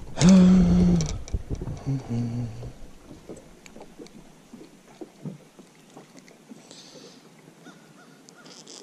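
A short wordless hum from a man's voice near the start, then faint clicks and rustles of hands working a hook free from a just-landed crappie.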